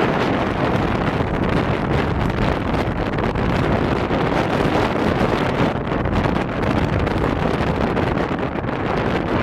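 Strong wind blowing across the microphone, a loud, steady rumble of wind noise.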